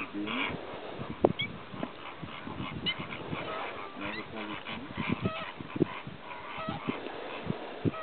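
Flock of greater flamingos calling: a steady chatter of short, goose-like honks from many birds. Scattered low thumps run underneath, the loudest about a second in.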